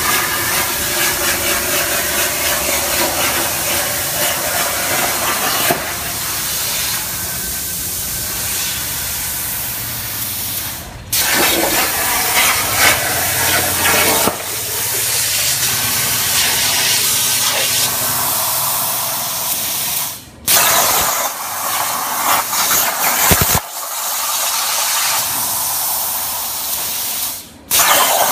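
CNC plasma cutter's torch arc cutting steel plate: a loud, steady hiss of the plasma arc and air jet, breaking off briefly three times.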